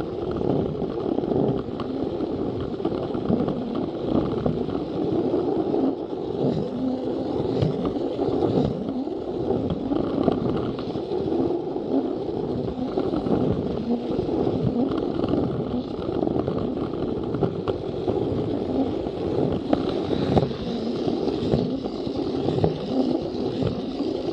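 Plarail battery-powered plastic toy train running along plastic track: a steady whir of its small motor and gears with a constant dense rattle and scrape of wheels on the rails.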